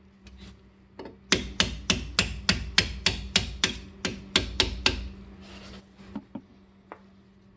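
A mallet striking the end of a drill bit used as a punch, driving a pad retaining pin out of a six-piston Brembo front brake caliper. It is a quick run of about fourteen sharp taps, about four a second, then two single taps near the end.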